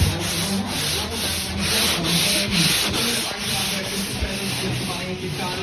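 Hand sanding of the Commodore's body panels, the sandpaper rasping back and forth in even strokes about two to three times a second, as the body is prepared for paint.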